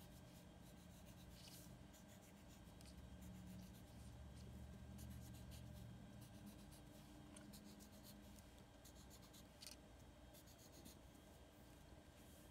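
Black felt-tip marker scratching and tapping out many short, quick strokes on paper while drawing small stars, faint, over a steady low hum.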